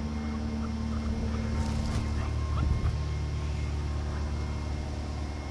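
Faint, short, high squeaks from a small pet animal, repeating several times a second, over a steady low hum, with a brief rustle about two seconds in.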